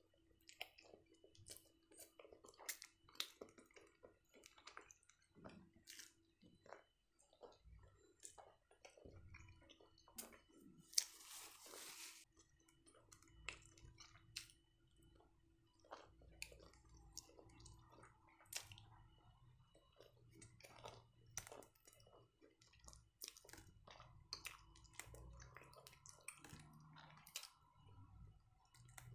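Faint close-miked chewing and mouth sounds of someone eating a black-bun burger, with frequent small wet clicks. A brief louder noise about eleven seconds in.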